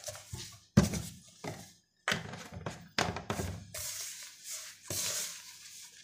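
Dough being mixed and kneaded by hand in a plastic bowl: several sharp thunks in the first three seconds as the bowl and oil bottle knock on the table, then a steady rubbing, squishing noise.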